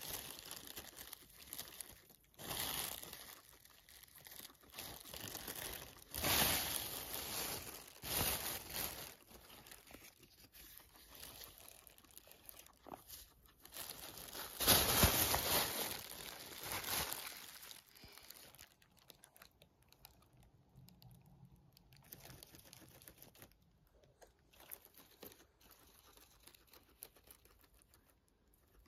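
A thin plastic bag crinkling in several loud bursts, the loudest about halfway through, as a guinea pig roots in it for greens. After that it settles into much quieter, faint rustling and nibbling.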